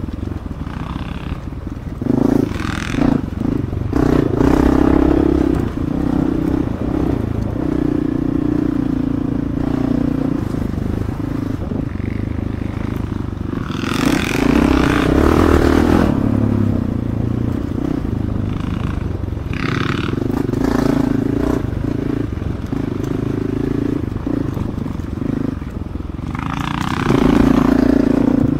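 Dirt bike engine running close to the microphone while riding a wooded single-track trail. The revs rise and fall as the throttle is worked, with louder surges about two seconds in, halfway through and near the end, over the clatter of the bike on the rough trail.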